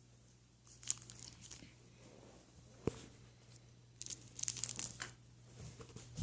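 Crinkling, crackling handling noises in two bursts, with a single sharp click between them.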